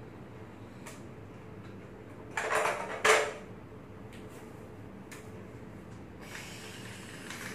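Wooden toy train pieces clattering against each other and the wooden floor: a short rattle about two and a half seconds in, ending in a sharper knock, then a fainter rattle near the end.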